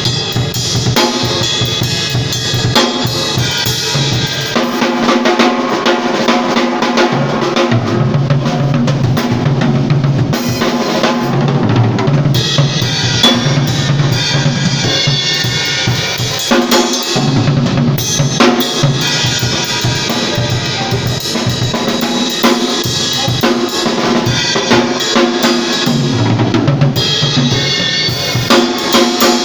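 Live band music with a full drum kit (kick, snare and rimshots) and pitched instruments playing together steadily.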